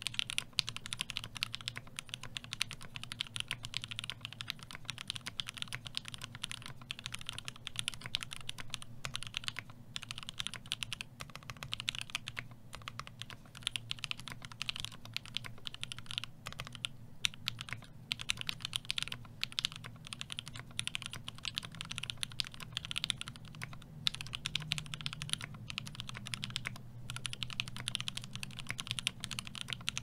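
Fast, continuous typing on a CannonKeys Brutal60 60% mechanical keyboard with an FR4 plate and NovelKeys Dry Yellow linear switches: a dense, even stream of key clacks with a few brief pauses.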